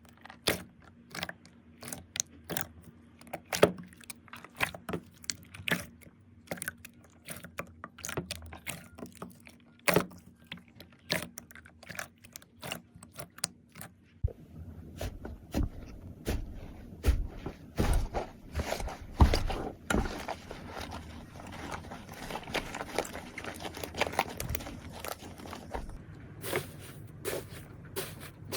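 Slime being squeezed and poked by hand, giving irregular sticky clicks and pops; about halfway through it changes to a denser, continuous crackling.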